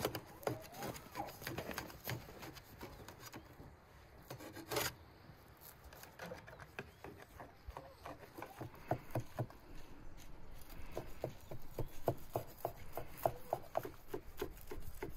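Large knife slicing through a grilled khan kebab of liver and lungs wrapped in lamb stomach, scraping and clicking against the wire grill rack underneath. The strokes are irregular at first, then come in a quicker, even run of short cuts in the second half.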